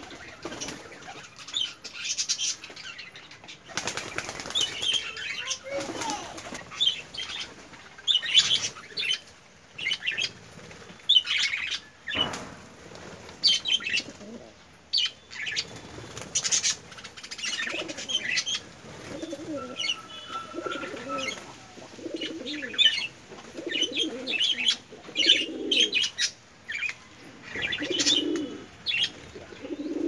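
A flock of budgerigars chirping and chattering in many short bursts, with wings flapping as birds flutter about the cage.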